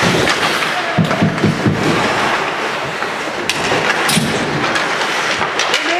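Ice hockey play on a rink: a steady scrape of skates on the ice, with several sharp clacks of sticks and puck.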